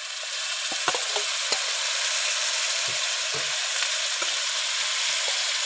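Onion and spice masala frying in oil in a pan as raw broiler chicken pieces are added: a steady sizzle, with a few light clicks of the metal spoon against the pan.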